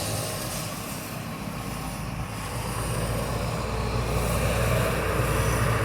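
Road traffic, motorbike and car engines, running along a wet street over a steady hiss of rain, getting a little louder in the second half.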